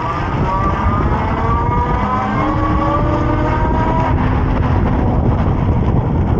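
E-bike electric motor whining as the bike accelerates, its pitch climbing slowly over a few seconds and then holding steady. Heavy wind rumble on the microphone runs underneath.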